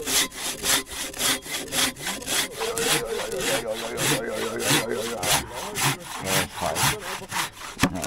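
A hand saw cutting back and forth through a log in steady strokes, about three a second. Just before the end there is a sharp knock as the sawn-off piece drops.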